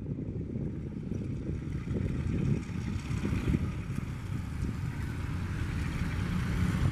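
ALCO RSD-16 diesel locomotive running as it approaches at the head of a train of empty hopper cars, a steady low engine rumble growing slightly with some wind on the microphone.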